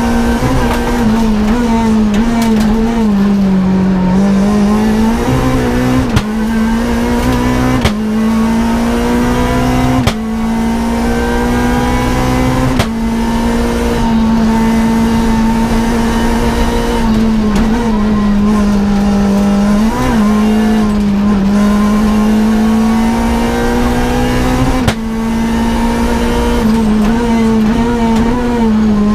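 Renault Clio R3 Access rally car's engine heard from inside the cockpit, running hard at high revs. The note wavers up and down with the throttle and is cut by about six short sharp breaks, the gear changes.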